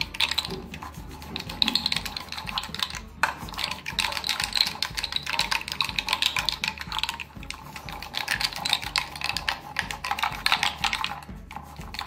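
Wooden ravi (hand churner) with a metal star-shaped head twirled fast in a glass bowl of yogurt and ice cubes: a rapid, dense clatter and slosh as the curd is whipped into lassi. It breaks off briefly a few times.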